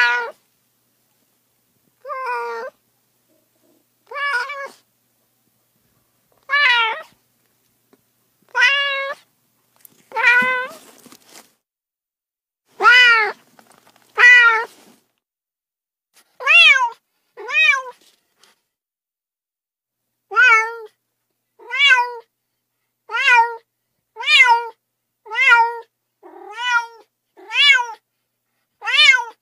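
Domestic cats meowing: a string of about eighteen separate meows, each rising and then falling in pitch, with silence between them. The meows come about every two seconds at first and about once a second in the second half.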